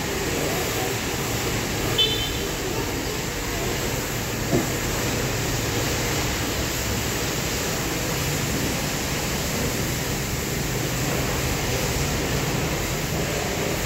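Steady background hiss and hum, with two short knocks about two and four and a half seconds in.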